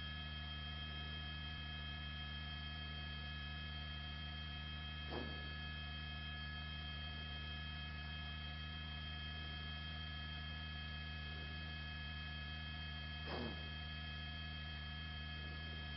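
Steady droning hum of many fixed tones on a helicopter's intercom feed, with two brief soft bumps, one about five seconds in and one about thirteen seconds in.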